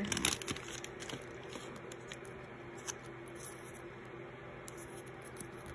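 A few light clicks and rustles of hands handling a small sticker and plastic toy pieces in the first half second, then only an occasional soft tap over a faint steady hum.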